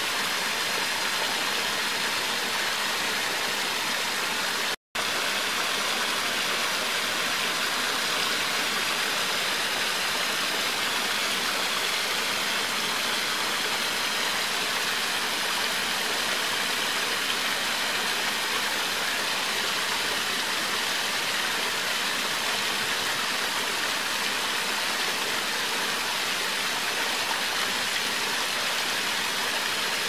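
Steady rush of flowing water, broken by a split-second gap of silence about five seconds in.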